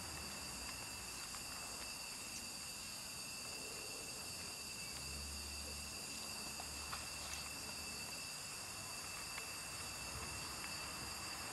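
Two cats eating dry kibble from a plastic tub, with a few faint scattered crunches and clicks. A steady high-pitched hum runs underneath, with a brief low rumble about halfway through.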